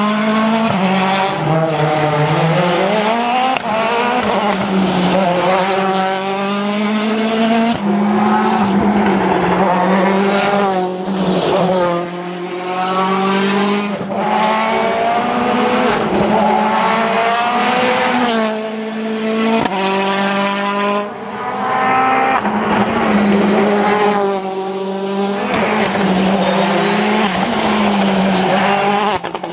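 Citroën DS3 WRC rally car's 1.6-litre turbocharged four-cylinder engine driven hard, its pitch climbing through the gears and dropping back over and over as the driver accelerates, shifts and lifts.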